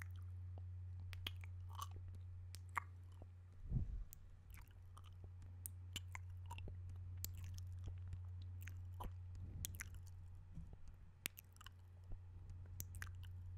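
Wet mouth sounds made right at a microphone: irregular clicks and sucking noises from lips and tongue, over a steady low hum. One low thump into the microphone about four seconds in.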